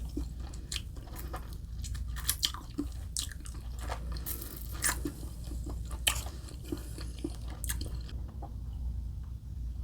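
Close-miked chewing and biting of crunchy breaded chicken katsu, with many crisp crunches and mouth clicks. The crunches thin out near the end.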